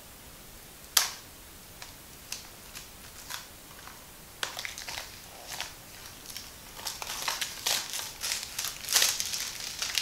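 Plastic shrink-wrap on a Blu-ray case being picked at and torn off by hand. There is a sharp snap about a second in and a few scattered clicks, then crinkling that grows denser and louder toward the end.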